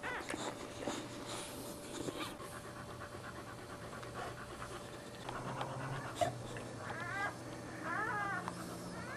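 Boxer mother panting after giving birth, with wet licking sounds as she cleans her newborn puppies. Near the end come a few short, high rising-and-falling squeaks, as from the newborn puppies.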